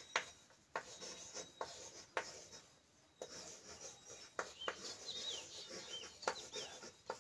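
Chalk writing on a chalkboard: sharp taps as the chalk meets the board at each stroke, with faint scratching between them and a short pause partway through. A few short bird chirps sound faintly in the background near the end.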